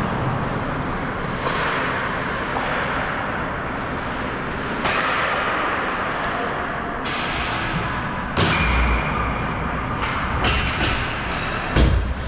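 Ice hockey play heard up close from rinkside: skates scraping the ice under sharp clacks of sticks and puck. A heavy thump comes about eight seconds in, and another, the loudest, near the end.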